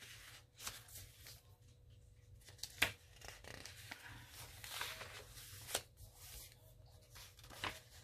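Paper pages of a handmade junk journal rustling and being handled, with several short crinkles and taps, over a faint steady hum.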